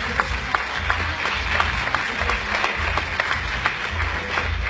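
Audience applauding: many hands clapping at an irregular pace.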